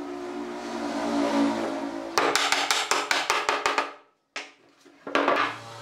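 A steady hum, then a rapid run of mallet blows on wood, about seven a second, as a wooden rail is knocked down onto the joint at the top of a post. A second short burst of knocking follows after a brief pause.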